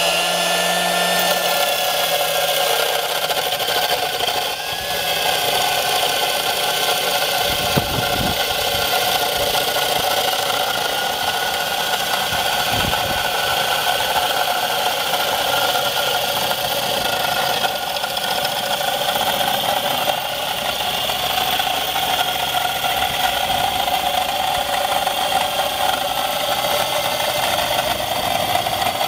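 Macroza electric wall chaser running steadily, its motor whine held at a constant pitch as it cuts a vertical channel into a pumice-block wall.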